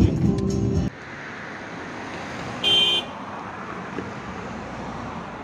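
Background music cuts off about a second in, leaving a steady hiss of passing traffic and wind. Near the middle a vehicle horn honks once, briefly.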